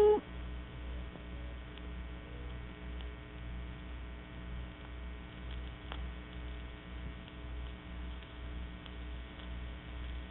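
Steady electrical mains hum with a slow, pulsing low throb underneath and a faint click about six seconds in. The last note of a vocoder-synthesized song cuts off right at the start.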